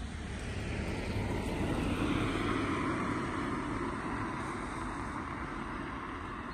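A car passing close by on a wet road, its tyre hiss and engine noise swelling to a peak about two seconds in and then fading as it drives away.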